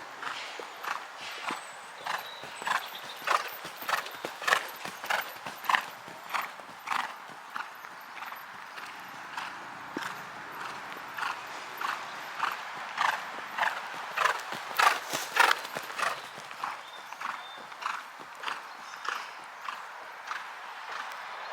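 A horse's hoofbeats in a steady rhythm, about two to three strikes a second, growing louder twice as the horse passes closer.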